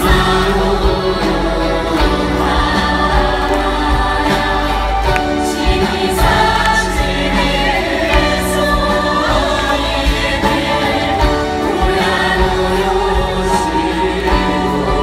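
Live Okinawan kachashi folk song, sung by a female vocal group with many voices joining in, heard over a stadium sound system with drumming.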